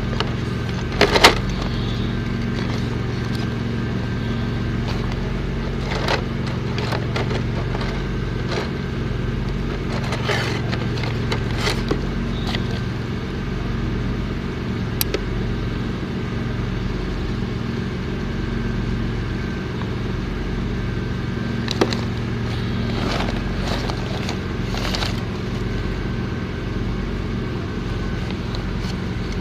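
Engine-driven welding machine running steadily with a low hum, with scattered sharp clicks and crackles, the loudest about a second in.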